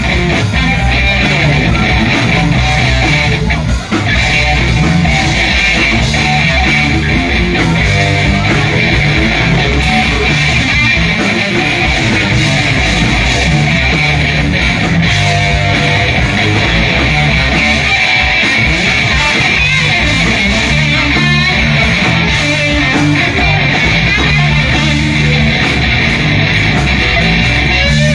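Live band playing an instrumental stretch led by electric guitar, over a bass line that steps from note to note.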